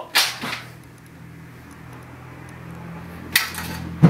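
A few short, sharp noises, two in the first half-second and another about three and a half seconds in, over a low steady hum that grows a little louder.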